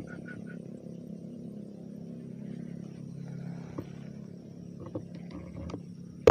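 Steady low drone of a night chorus of frogs and insects. A run of quick, evenly spaced chirps, about four a second, stops about half a second in. A few faint clicks follow later, and there is a sharp click at the very end.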